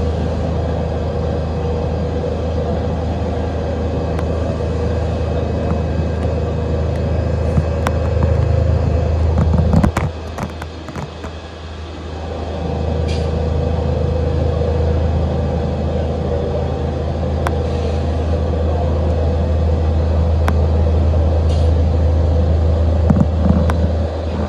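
Takamaz XT-8MY CNC lathe running through a shaft-machining cycle: a steady low machine hum with a constant whine and scattered clicks. About ten seconds in the sound drops away briefly, then builds back up, as the spindle slows and spins up again.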